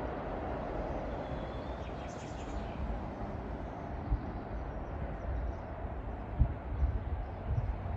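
Outdoor ambience: a steady distant rumble, with gusts of wind buffeting the microphone in the second half and a bird chirping briefly about two seconds in.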